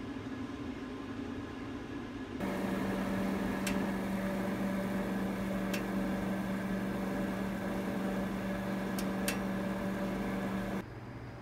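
Countertop oven running with a steady electrical hum and fan hiss, with a few sharp ticks as it cooks. It starts suddenly a couple of seconds in, after a quieter steady hum, and cuts off shortly before the end.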